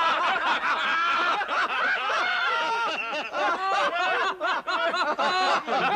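A man laughing hard and without a break, a long run of hearty, cackling laughter.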